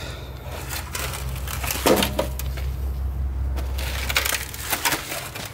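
Dry leaves crunching and crackling underfoot in irregular bursts, over a steady low hum.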